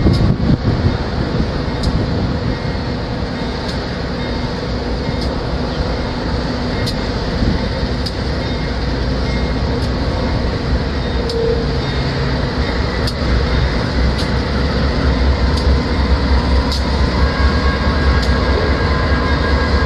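GE C44-9W diesel-electric locomotives of a light engine set running as they roll slowly past, a steady low diesel rumble that grows louder in the second half. Faint ticks come roughly once a second over it.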